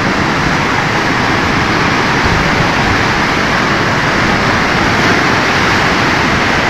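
Muddy floodwater rushing loudly and steadily, as a torrent pours over a bank and through a road bridge's openings.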